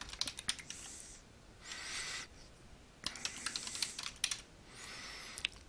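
Typing on a computer keyboard: quick runs of key clicks near the start and again around three to four seconds in, with short soft hissing sounds between the runs.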